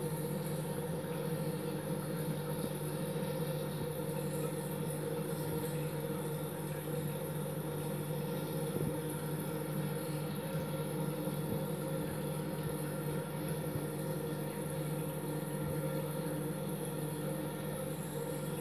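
Reef aquarium's pumps and circulation equipment running with a steady, unchanging hum and hiss.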